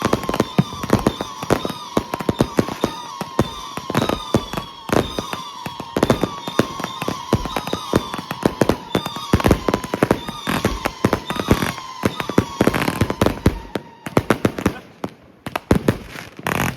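Two World Class Fireworks cakes, Wings of the Brave and Shield of Liberty, firing together: a dense, rapid run of bangs and crackles over repeated short whistling tones that drop slightly in pitch. The barrage thins out and grows quieter near the end.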